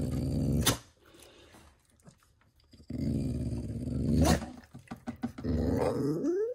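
Pit bull making its drawn-out, growly Chewbacca-like moan, its 'let's get going' sound, three times; the last one rises in pitch at its end.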